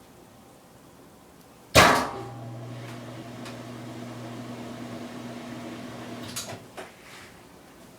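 A loud clunk, then the washing machine's motor hums steadily for about four and a half seconds and cuts off with a click or two.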